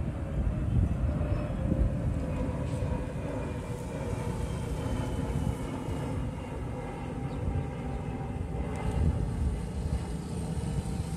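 Outdoor background noise: a steady low rumble with a faint, even engine-like drone over it.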